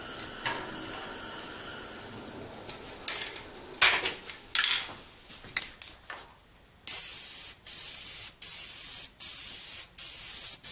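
Aerosol spray can of finish being sprayed over wood in about six short, even bursts of hiss, putting on light coats. A few sharp knocks and clicks come before the spraying, around four seconds in.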